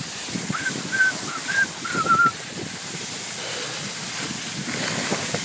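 Skis running over packed snow on a downhill run, a steady hiss with wind on the microphone. A handful of short, high chirps come in quick succession in the first couple of seconds.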